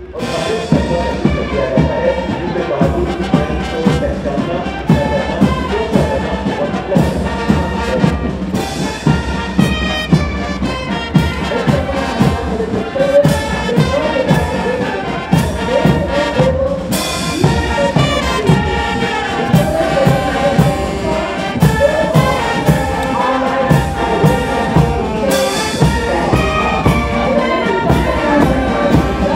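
Military brass band playing a march, trumpets and trombones over a steady beat.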